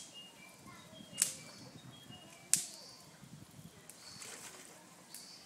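Malayan tapir stepping into a pond: two sharp splashes about a second and a half apart, then a stretch of water sloshing as it wades in. A bird twitters in the background.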